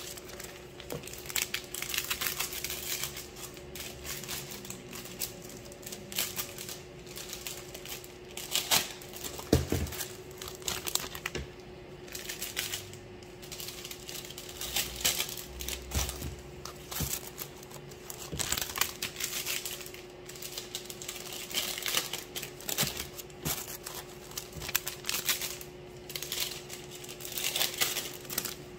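Clear plastic treat bags crinkling and rustling in irregular bursts as pieces of butter bar are packed into them, with a steady low hum underneath.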